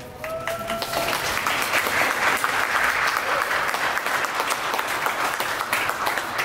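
Audience applauding at the end of a live dance performance: the clapping starts as the music stops, swells over the first two seconds and eases off a little toward the end.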